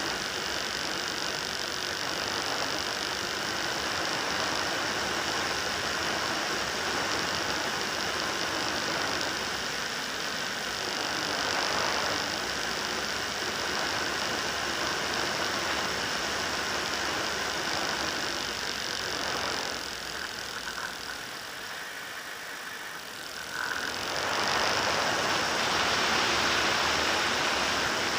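Motor and propeller of an FPV model aircraft running steadily in flight, mixed with wind rush, heard from the onboard camera. About two-thirds of the way in it drops off for a few seconds, then picks up again louder.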